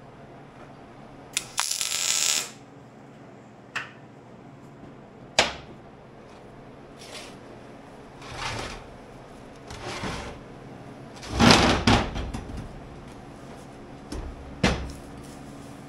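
Cut steel plate parts being handled on a steel work table: a string of clanks, knocks and short scrapes, the loudest about 11 to 12 seconds in. About a second and a half in there is a short hissing burst lasting about a second.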